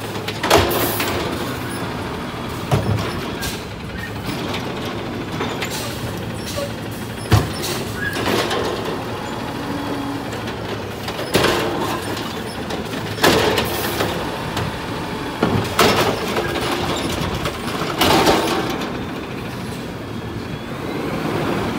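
Automated side-loader garbage truck running as its hydraulic arm dumps a wheeled trash cart and lowers and retracts it. The steady engine hum is broken by a series of loud knocks and clanks from the arm, the cart and the dumped load.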